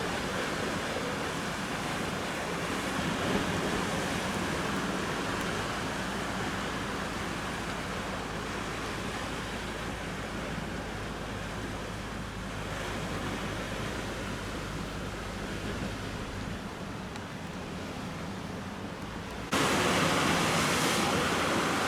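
Ocean surf washing on a beach, a steady rushing noise with wind on the microphone; the noise jumps suddenly louder near the end.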